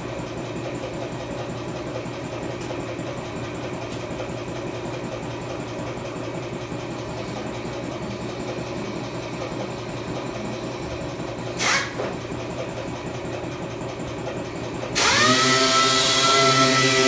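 A low steady hum, a brief burst of a power tool about twelve seconds in, then a power tool starting suddenly near the end and running with a loud, steady whine.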